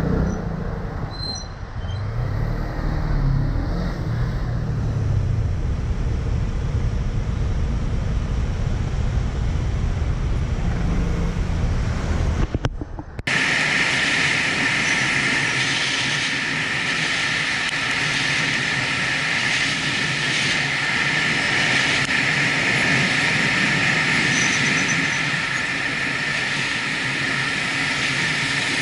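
Onboard sound of a motorcycle moving through slow city traffic: engine running, with wind and road noise, swelling a few seconds in. About halfway through it cuts abruptly to another onboard recording, a steady loud hiss of road and wind noise.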